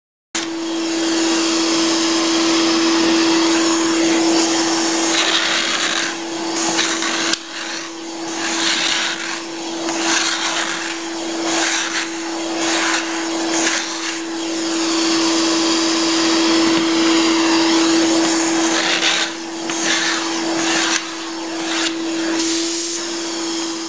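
Domestic vacuum cleaner running with a steady hum and rushing air, drawing through a ProScraper vacuum scraper as its tungsten carbide blade strips blistered paint from a wooden window sash. The airflow noise dips again and again in the middle stretch and near the end, with each scraping stroke.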